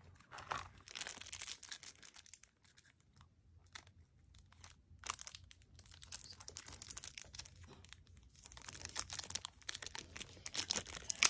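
Plastic wrapping on a stack of Pokémon trading cards crinkling and rustling as it is handled. There is a quiet pause about two to five seconds in, then denser crinkling that grows louder near the end.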